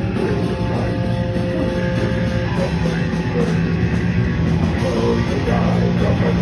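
Rock music with distorted guitar and drums, in a heavy metal style.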